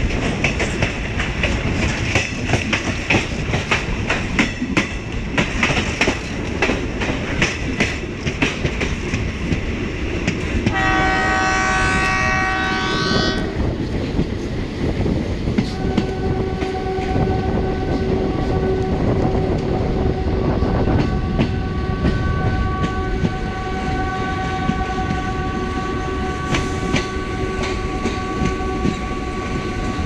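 Coach wheels clattering over rail joints on a moving express train hauled by a WDM-3A diesel locomotive. The locomotive's horn sounds in a short blast about a third of the way in, then in a long, steady blast from about halfway on, briefly broken near two-thirds through.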